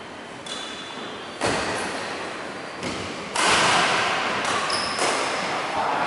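Badminton rally: sharp racket hits on a shuttlecock, several of them a second or so apart, each echoing in a large hall. Short high squeaks from shoes on the wooden court come in between.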